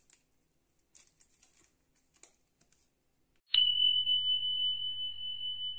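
Faint soft taps and rustles as a glass tumbler presses cookie dough on a baking tray, then, about three and a half seconds in, a single bell-like chime is struck and rings on as one high steady tone, slowly dying away.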